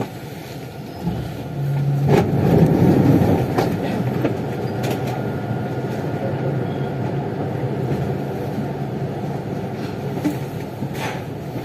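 On-board hum of a Siemens VAL 208 NG rubber-tyred metro train, steady with a low constant tone and a few sharp clicks.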